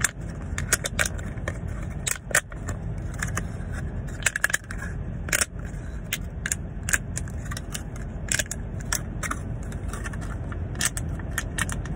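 Clear plastic blister packaging used as a homemade pop-it fidget, its bubbles pressed in and crinkled by fingers: irregular sharp crackly clicks, a few a second. Under them is a steady low rumble of car-cabin noise.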